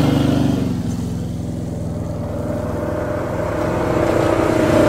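Polaris RZR 570 side-by-side engines running as the machines drive past on gravel. The sound eases off about a second in, then grows louder again as the next one comes closer.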